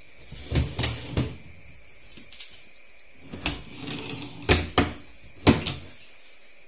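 Knocks and thumps of a large meranti-plywood flight case with aluminium edging being handled and shifted: three in the first second or so, then a cluster between about three and a half and five and a half seconds in, the loudest near the end of that cluster.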